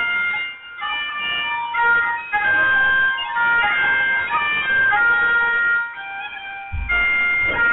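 Pipes playing a melody of held, changing notes in phrases broken by short pauses, with a brief low thump of handling noise near the end.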